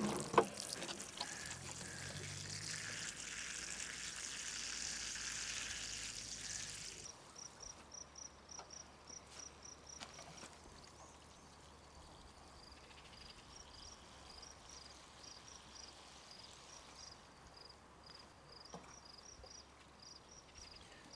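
A sharp knock just after the start, then water running steadily for about seven seconds before it stops abruptly. After that, insects chirp outdoors in runs of short, evenly spaced high pulses.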